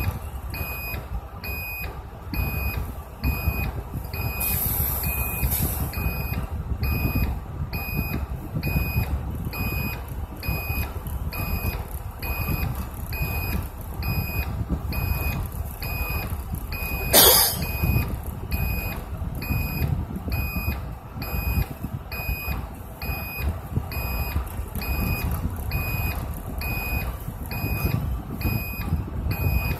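Bus reversing alarm beeping steadily about once a second over the low rumble of the bus's engine as it backs up. A short, loud hiss cuts through a little past halfway.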